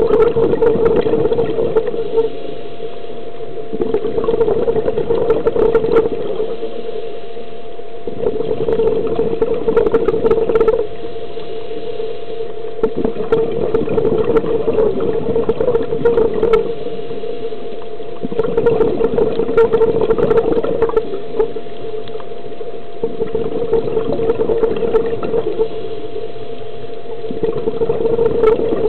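Scuba diver's regulator breathing underwater: bursts of exhaled bubbles lasting two to three seconds, about every four to five seconds, over a steady hum.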